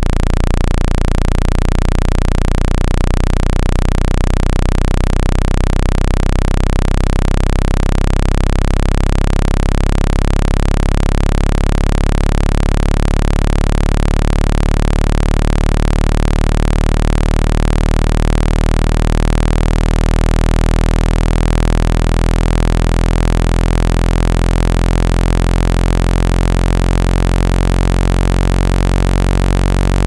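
Synthesized low-frequency water-eject tone: a loud, steady, deep electronic hum of several overlapping low tones, made to vibrate trapped water out of a phone's charging port.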